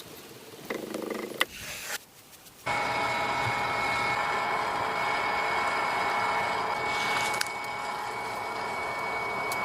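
A power tool running at a steady speed with an even whine, starting suddenly about three seconds in; a few brief, quieter noises come before it.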